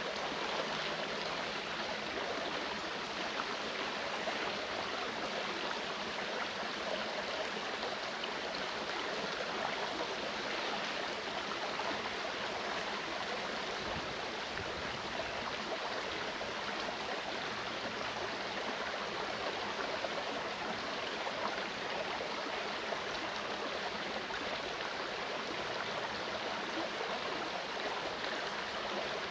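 Clear mountain stream flowing steadily over rocks.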